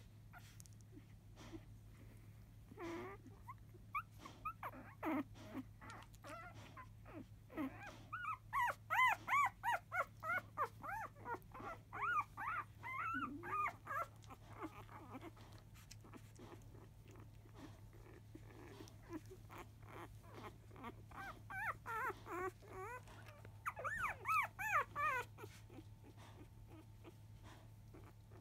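Five-day-old Labrador retriever puppies squealing and whimpering in quick, high, wavering cries as they scramble to nurse. The cries come in two flurries, one in the middle and one near the end, with a few single whimpers between.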